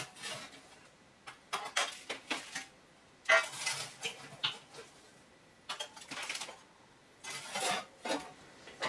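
Metal tool scraping and clinking inside a cast-iron wood stove's firebox while the ash is cleaned out, in several short, irregular bouts with pauses between them.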